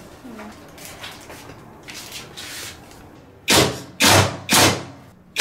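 Four loud clunks about half a second apart, starting a little past halfway, as parts of a front-load washing machine are handled and knocked into place during reassembly. Before them there is only faint rustling.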